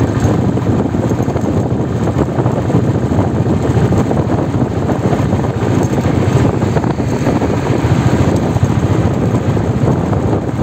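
Wind buffeting the microphone on a moving motorbike, mixed with the bike's engine and road noise in a steady, loud rush.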